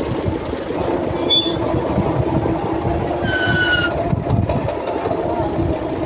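Tractor engine running steadily, with high-pitched metallic squeals coming and going over it from about a second in until near the end.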